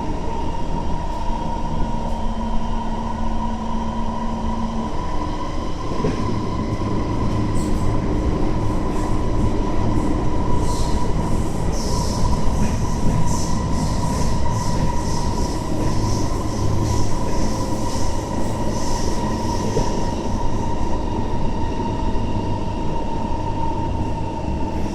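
Inside a Kawasaki C151 MRT train running between stations: a steady rumble under a constant high hum. From about seven to twenty seconds in, a run of short, high wheel squeals sounds.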